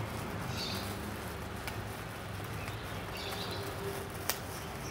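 Street-side background ambience: a steady low hum, a few faint high chirps, and one sharp click about four seconds in.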